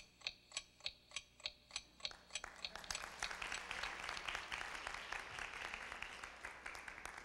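Audience clapping in unison, about three claps a second, then breaking into general applause from about two and a half seconds in.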